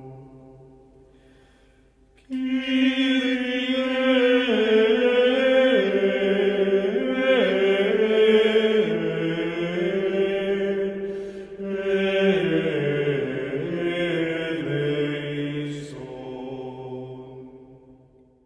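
Sacred chant sung by several voices in harmony, holding long, slowly moving notes. A loud phrase starts about two seconds in, there is a short break midway, and a softer closing phrase fades out at the end.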